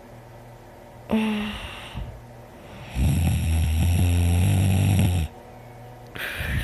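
A person in deep sleep snoring loudly. There is a short, sharp breath about a second in, then one long, low, fluttering snore lasting about two seconds.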